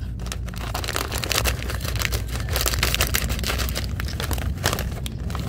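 Plastic snack bag crinkling continuously as it is cut open with scissors and handled over a bowl.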